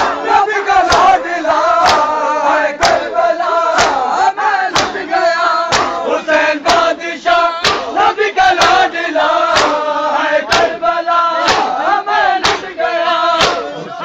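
A crowd of men chanting a nauha (Shia lament) in unison, with sharp chest-beating strikes (matam) landing together about once a second.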